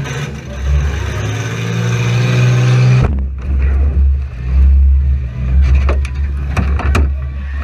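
Demolition derby car's engine revving under load and slowly rising in pitch. About three seconds in the sound changes to a heavy low rumble, broken by several sharp knocks and bangs.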